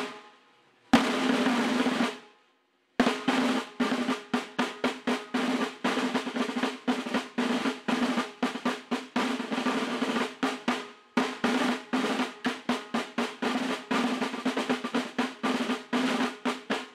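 Snare drum in the soundtrack: two short drum rolls, a brief pause, then a fast, steady run of snare strokes.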